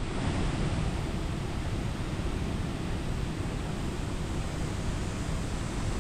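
Sanrendoro Falls, a waterfall cascading in three steps, rushing steadily, a dense unbroken roar of falling water.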